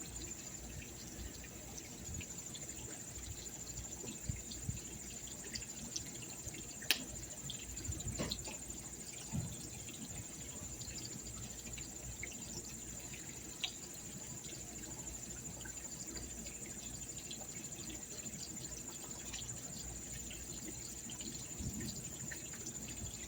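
Insects chirring steadily at a high pitch, over faint running water, with a few scattered small clicks.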